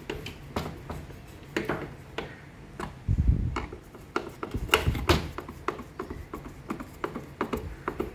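Screws being driven in with a screwdriver during reassembly of a washing machine: a run of irregular clicks and knocks, with short low rumbles about three and five seconds in.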